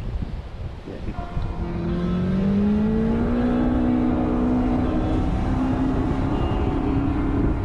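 A boat motor speeds up over about two seconds and then runs steadily, with wind buffeting the microphone.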